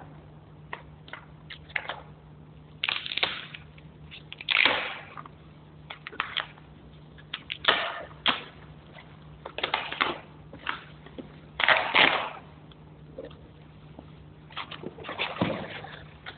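Foam packing wrap rustling and crinkling in irregular bursts as it is handled and pulled off a projector, over a faint steady low hum.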